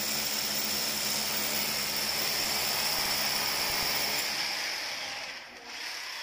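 Hammer drill with a long masonry bit boring into a cement wall, running steadily with a dense rattling whine. It eases off about five seconds in as the bit is drawn back.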